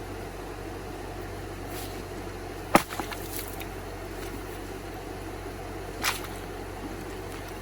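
Two sharp knocks over a steady low hum: a loud one about three seconds in and a softer one about six seconds in.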